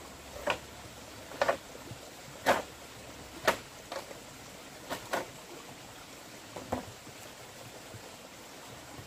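A series of sharp knocks, some in quick pairs, about one a second and stopping about seven seconds in, with the loudest strikes in the middle, over a steady background hiss.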